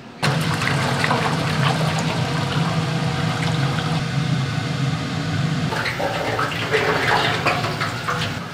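Cooking oil pouring in a thick stream from a jug into an empty stainless-steel deep-fryer tank, splashing onto the wire rack. It starts suddenly and turns more broken and uneven about six seconds in.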